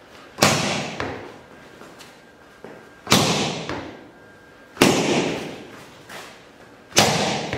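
Lead-hand punches (jabs) smacking into padded gear: four loud, sharp smacks about two seconds apart, with a lighter hit about a second in, each ringing out in the echoing training hall.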